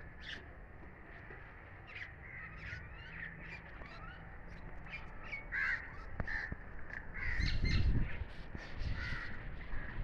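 Crows cawing again and again, short calls scattered through. A low rumble on the microphone swells about seven seconds in and lasts about a second and a half.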